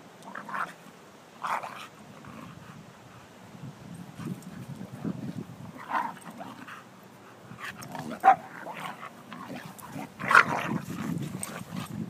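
Two dogs, a Neapolitan Mastiff and a Bulldog, play-wrestling: a handful of short barks and yips, the loudest a sharp one about eight seconds in and another about ten seconds in, over low continual noise from the tussle.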